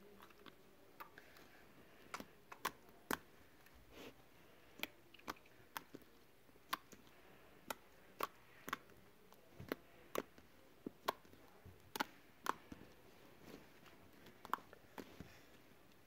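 Slime being squeezed and poked by hand, giving off irregular sharp clicks and pops, roughly two a second.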